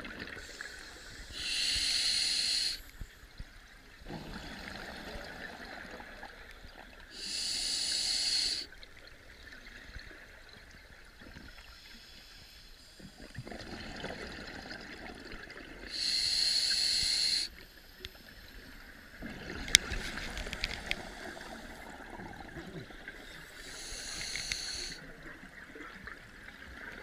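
Scuba diver breathing underwater through an open-circuit regulator. Four hissing inhalations come about every seven to eight seconds, with exhaled bubbles gurgling between them. A single sharp click sounds about twenty seconds in.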